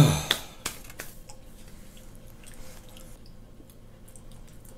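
Chewing and eating at a dining table: faint mouth sounds and small scattered clicks. A brief, louder sound sliding down in pitch comes right at the start.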